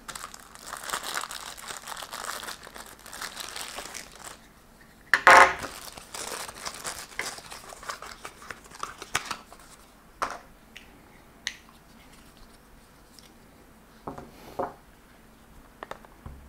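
Crinkling and rustling of paper and plastic packaging as a small accessory box is unpacked, with a louder burst of handling about five seconds in, then quieter fiddling broken by a few light clicks.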